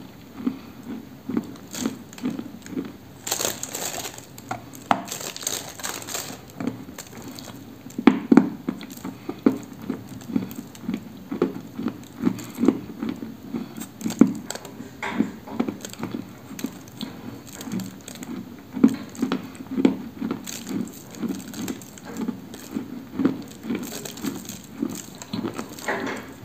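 Dry orange-yellow 'Apricot' edible clay being chewed close to the microphone: a steady run of crunching chews about two a second, with sharper crackly crunches now and then.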